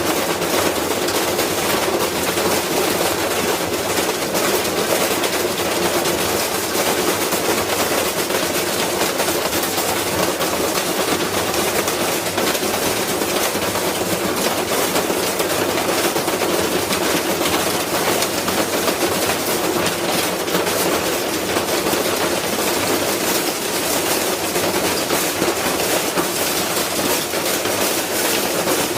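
Hard tools clattering continuously inside a tumbling washing machine drum: a dense, rapid rattle of many small impacts, steady throughout with no pauses.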